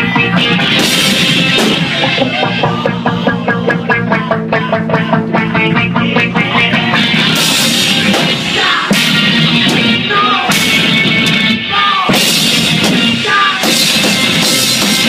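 Loud live rock music from a band playing in the room, with the drum kit driving it and cymbal crashes coming in repeatedly in the second half.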